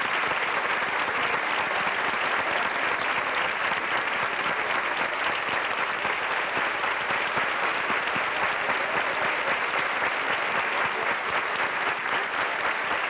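Theatre audience applauding steadily, a dense continuous clapping.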